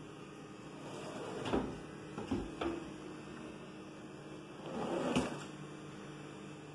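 Kitchen cabinet door and pull-out wire rack being shut, with a knock about a second and a half in followed by two clicks. Then a drawer slides open on its runners and stops with a click about five seconds in.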